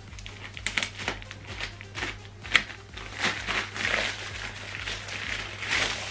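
White plastic packaging sleeve crinkling and rustling as a soundbar section is handled and slid out of it, with irregular crackles throughout.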